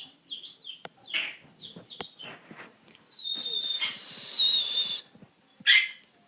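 Pet bird chirping in short high calls, then whistling one long note that wavers for about two seconds, followed by a short scratchy call near the end.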